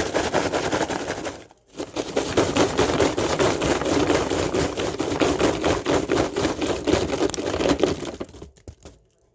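Popped popcorn being poured into a bowl, a dense rattling crackle of many kernels. It breaks off briefly about a second and a half in, then runs on and thins out near the end.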